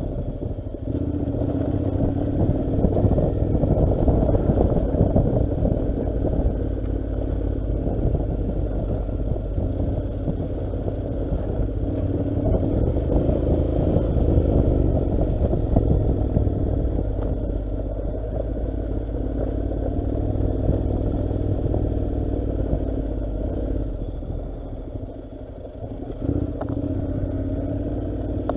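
Honda NC700's 670 cc parallel-twin engine running under steady throttle at low speed on a dirt track, with rattling and road noise from the rough surface. The engine eases off about three-quarters of the way through and then picks up again.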